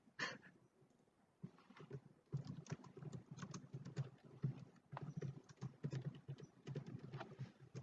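Faint, irregular clicks and taps, starting about a second and a half in, over a faint low hum.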